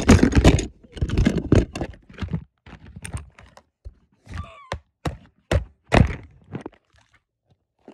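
Handling noise from a phone being moved about: scraping and rubbing against its microphone for the first two seconds, then a series of separate thunks and knocks.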